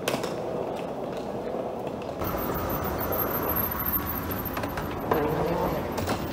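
Cabin noise inside a Boeing 737-700, its CFM56-7B engines running with light rattles. The low rumble steps up about two seconds in.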